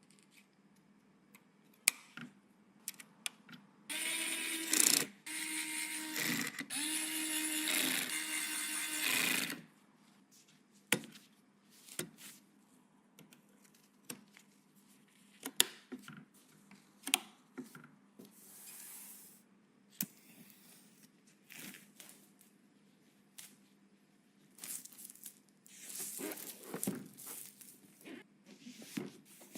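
A small electric screwdriver whirring in a few short runs over about five seconds, stopping and restarting in between. Scattered light clicks and taps of small hardware and parts being handled come before and after it.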